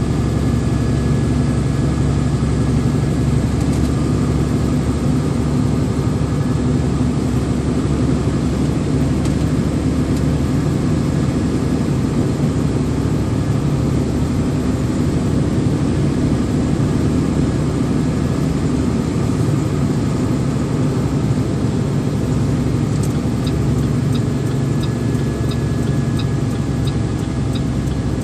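Vehicle engine running steadily with road noise while driving up a mountain road. Near the end a light ticking starts, about one and a half ticks a second.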